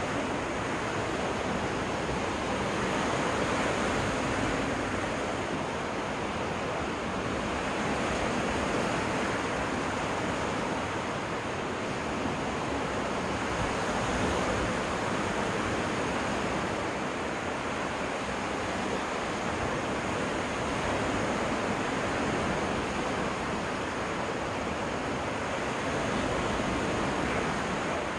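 Waves breaking on a freshwater lake beach: a steady rush of surf that swells and eases every few seconds.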